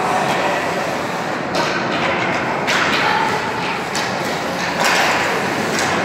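Ice hockey game sounds on the rink: a steady din with sudden knocks and thumps from the play, about one and a half, nearly three and five seconds in.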